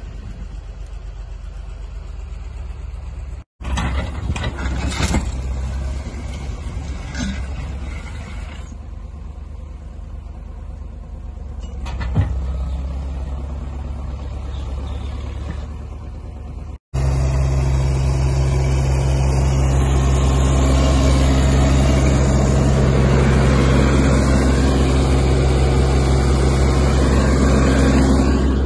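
Diesel engine of a compact tracked machine running steadily beside the freighting sleighs, quieter at first and much louder and closer in the last part. A single sharp knock about twelve seconds in.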